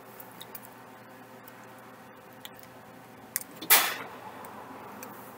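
Eating a Subway sandwich close to the microphone: soft mouth clicks and smacks, then one short, loud bite into the sandwich a little before four seconds in.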